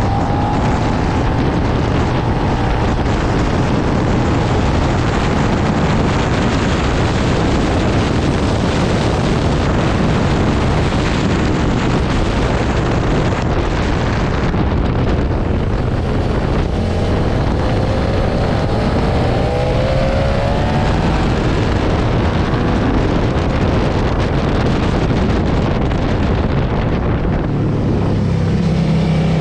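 Suzuki SV650's 645 cc V-twin engine running at speed on track, heard mostly through heavy wind rushing over the microphone. Its pitch rises as it accelerates a couple of times, and near the end the wind eases and the engine's steady note comes through more clearly.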